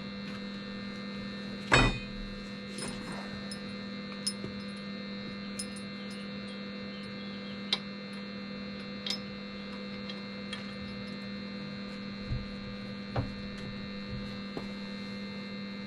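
Arc welder humming steadily, with a few light clicks and a sharper knock about two seconds in.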